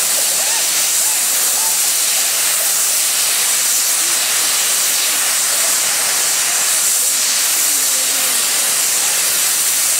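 Safety valves of Ivatt Class 2MT 2-6-2T tank engine No. 41241 blowing off: a loud, steady hiss of escaping steam, the sign that the boiler is at full working pressure while the engine stands.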